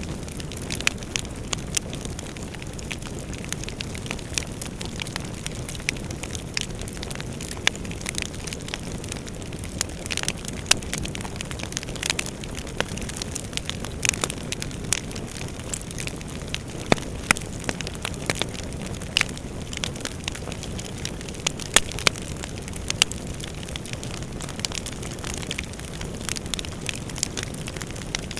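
Wood fire burning in a fireplace: a steady low roar of flames with frequent sharp, irregular crackles and pops.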